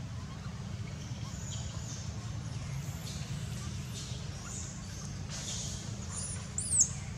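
A short, high-pitched animal squeak that rises and falls about six and a half seconds in, over a steady low rumble and a few faint high chirps.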